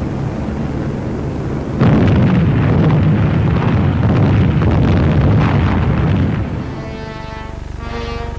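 Bombs exploding on a target: after a low steady rumble, a sudden loud onset about two seconds in and a dense run of blasts for about four seconds. The blasts fade near the end as music with held notes comes in.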